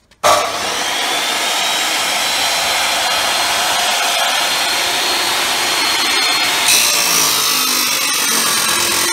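Abrasive cut-off (chop) saw starting up suddenly and running at full speed. About two-thirds of the way in, the sound turns brighter and hissier as the disc bites into a steel square tube and cuts it at a 45-degree mitre, throwing sparks.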